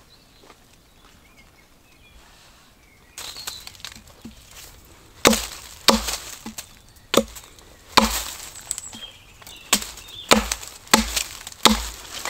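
An axe chopping wood: a run of about ten sharp, evenly paced strikes, each with a dull thud, starting about five seconds in after a stretch of rustling.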